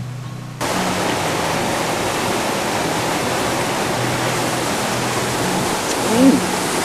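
A forest stream rushing over rocks in a small cascade: a steady, loud water noise that comes in suddenly about half a second in.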